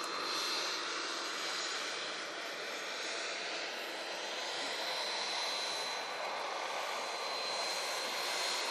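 A model aircraft engine running steadily, a constant rushing noise with a steady high whine.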